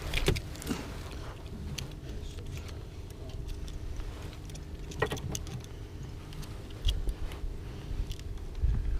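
A boat's engine idling as a steady low rumble, with scattered light clicks and rattles from fishing gear being handled.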